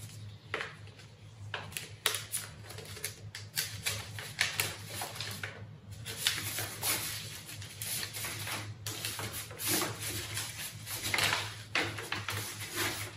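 Folded paper and gold foil pleats rustling and crinkling as they are handled and pressed together, with many irregular crackles and taps. A low steady hum runs underneath.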